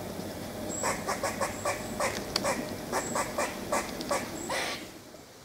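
An animal calling in a rapid string of short, clipped calls, about four a second, starting about a second in and stopping near the end.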